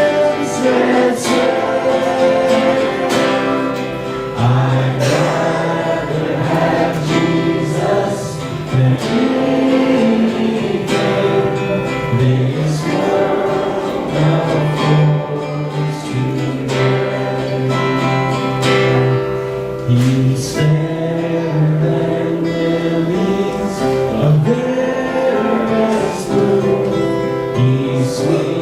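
Congregational worship music: a group of voices singing together with a band, including guitar and bass, and a steady beat.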